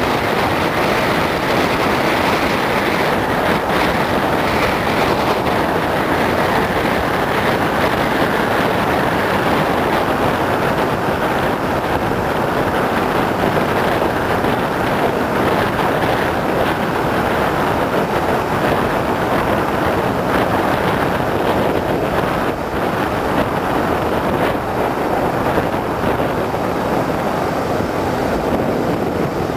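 Steady wind and road noise of a car driving along, an even rushing sound with no clear engine note.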